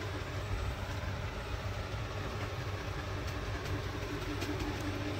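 Steady low mechanical hum with a faint steady tone running through it.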